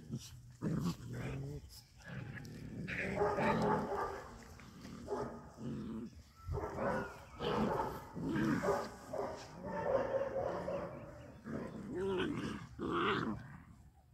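Seven-week-old puppies growling and barking in play, a run of short bursts one after another.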